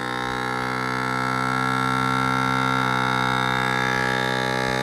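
Outrigger Outdoors countertop vacuum sealer's pump running with a steady hum, drawing the air out of a bag. The tone shifts slightly about three seconds in.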